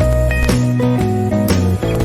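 Background music: a plucked-string melody over a steady bass, with notes changing about every half second.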